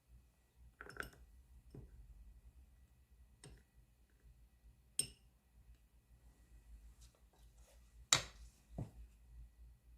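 Sparse light clinks and taps of kitchen utensils and dishes being handled, a few separate knocks with the loudest a little after eight seconds in.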